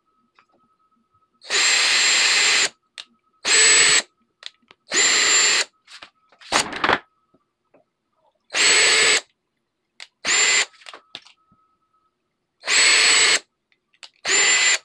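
Cordless drill driver drilling mounting holes in about seven short bursts of half a second to a second and a half each, its motor whining at each trigger pull, with a few light clicks in between.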